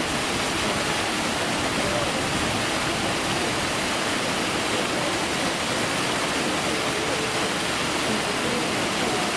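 Steady rush of running water, with faint chatter of visitors underneath.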